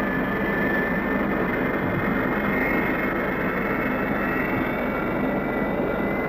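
Jet engine running on a test bed: a steady roar with a high whine that wavers slightly in pitch.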